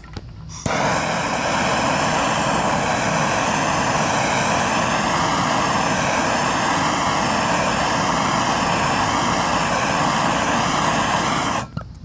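MAP gas torch lit about a second in and burning with a steady hiss, with a faint wavering tone in it, then shut off abruptly just before the end. The flame is heating the end of a 6061-T6 aluminum tube to anneal it.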